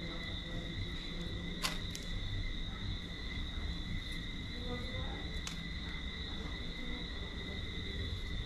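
Steady high-pitched insect chirring, like crickets, over a low background rumble, with a few short clicks from a knife paring the skin off a roasted breadfruit.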